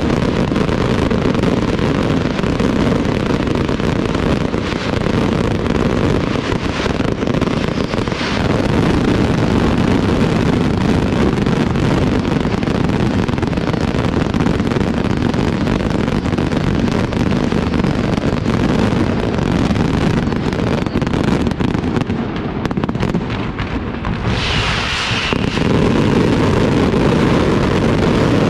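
Aerial fireworks display: a dense, continuous barrage of shells and salutes bursting in rapid succession, their bangs running together into one loud rumble. It eases briefly about three-quarters of the way through, where a short higher hiss or crackle stands out, then the barrage builds again.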